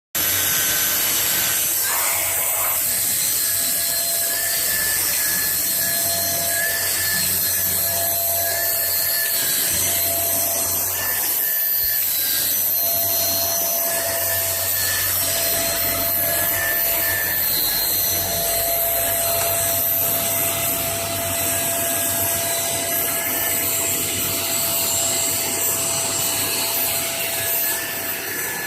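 Household vacuum cleaner running steadily: a constant motor whine over a rushing hiss.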